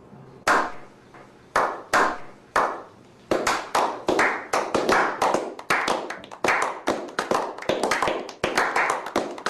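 A run of sharp slaps, sparse at first and then coming several a second and unevenly from about three seconds in.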